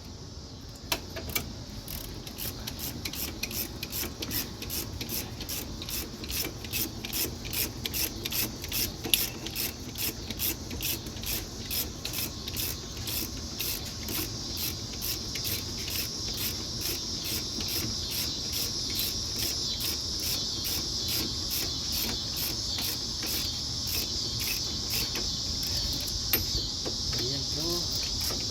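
Crickets chirping in a steady, even rhythm of about two to three chirps a second, over a high hiss that grows a little louder in the second half, with faint rubbing of hand-tool work.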